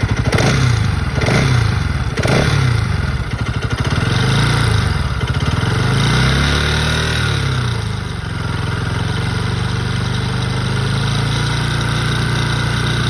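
Bajaj Pulsar NS200 BS6 single-cylinder engine revved in short throttle blips about once a second, then a slower rise and fall, settling to a steady idle. It is the engine the owner complains of for a rattle noise.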